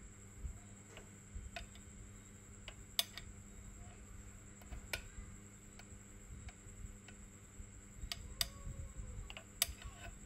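Irregular sharp clicks and taps of eating utensils against dishes, often a second or two apart, over a faint steady hum.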